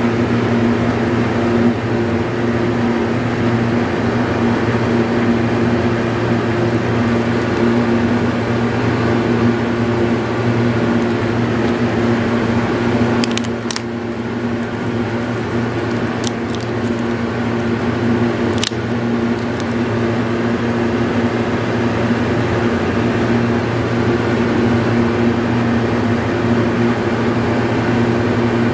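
A steady mechanical hum, with a few short, sharp clicks about halfway through.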